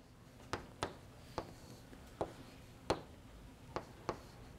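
Chalk writing on a blackboard: a series of short, sharp ticks, about seven in four and a half seconds, at an uneven pace.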